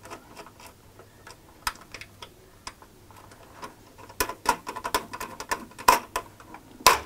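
Irregular light clicks and taps of hands working cables and terminals into a heating wiring centre, busier in the second half with a couple of sharper clicks near the end.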